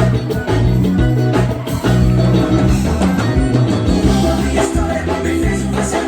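A live band playing forró gospel during a soundcheck, with a bass line and steady drum beat.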